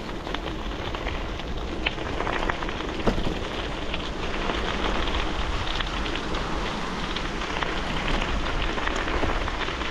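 Bicycle tyres rolling downhill over loose gravel: a constant crackling crunch with scattered sharp clicks of stones, over a low rumble.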